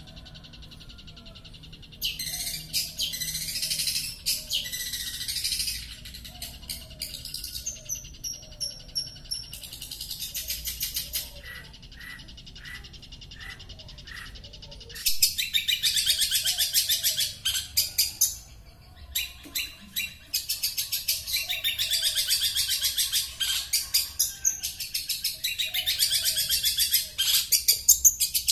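Long-tailed shrike (cendet) singing in bursts of fast, scratchy chattering song a few seconds long, with short pauses between. The song includes a run of short high whistles and a stretch of evenly spaced ticks, about two a second.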